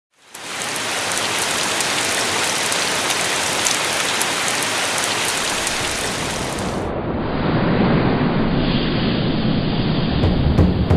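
Steady rain falling, a dense hiss with scattered drop clicks, fading in at the start. About seven seconds in the sound turns duller, with a low rumble coming up underneath the rain.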